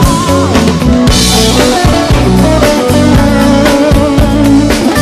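Rock band playing an instrumental passage: electric guitar lead with wavering, bent notes over bass guitar and drum kit, with a cymbal crash about a second in.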